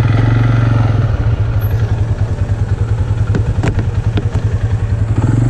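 ATV engine running under the rider, its low note steady at first, then lumpy and pulsing for a few seconds before evening out again near the end. A few sharp clicks are heard about three to four seconds in.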